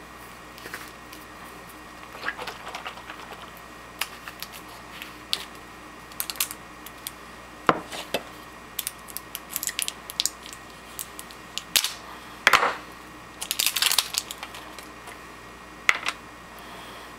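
Glass Frappuccino bottle being handled on a countertop and its twist cap unscrewed: a run of scattered clinks, knocks and short scrapes, with a couple of longer scratchy twists past the middle.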